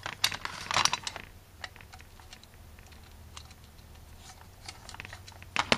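Screwdriver and small metal parts clicking and scraping against an aluminium carburetor body while the secondary diaphragm housing is unscrewed. There is a cluster of clicks in the first second, sparse single ticks after it, and another cluster near the end.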